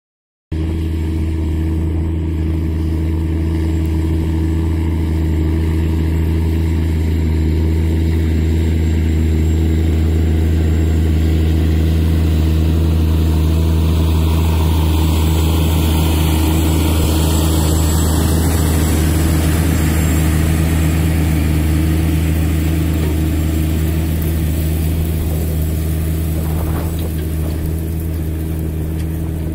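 Case IH Quadtrac tracked tractor's diesel engine working steadily under load while pulling a plough: a low, even drone.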